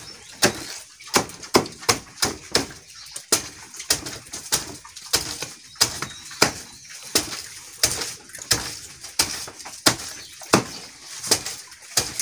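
A sharp knife chopping a banana stem into small pieces on a wooden log: a steady run of chops, about one and a half a second.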